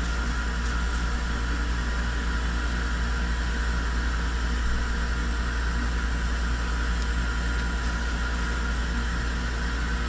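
Steady low hum with an even rushing noise from a running fan-driven appliance, unchanging throughout.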